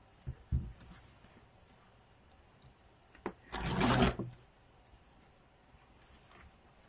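Deco mesh being cut and handled on a work table: two soft knocks in the first second, then a click and a brief rustle about three and a half seconds in, the loudest sound.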